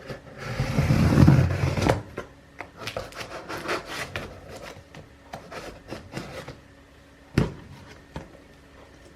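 Household handling noises: a loud rough rubbing rustle for about two seconds, then a string of light clicks and taps, and one sharp knock near the end, like wooden cupboard or drawer fittings being handled.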